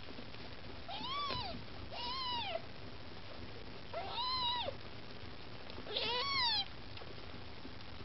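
A Maine Coon kitten mewing four times, each a short high-pitched cry that rises and falls in pitch.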